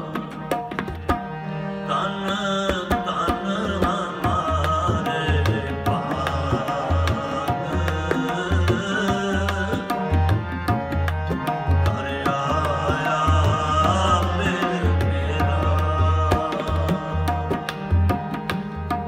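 Shabad kirtan accompaniment: tabla played in a steady rhythm with deep bass-drum booms, under sustained harmonium tones.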